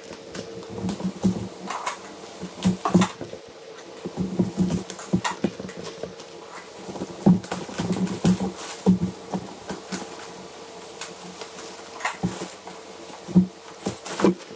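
Plastic wrapping, packing tape and cardboard rustling, crinkling and tearing in irregular crackles as a taped parcel is opened by hand.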